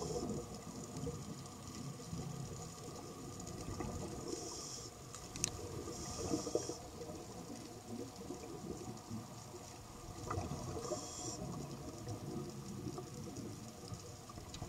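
Underwater sound of a scuba diver breathing through a regulator: a steady low bubbling rumble of exhaled air, broken by three short hissing inhalations, with one sharp click about five seconds in.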